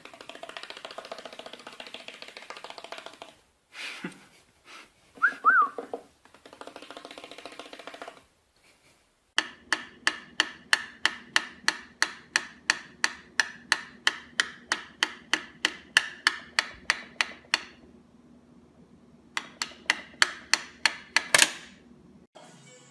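A brief whistled glide, then a long run of sharp, evenly spaced taps at about four a second, which stops and starts again a few seconds later.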